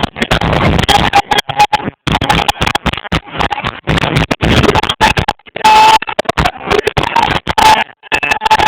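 Live reggae band music recorded on a phone. The sound is badly distorted and keeps cutting out in short dropouts several times a second.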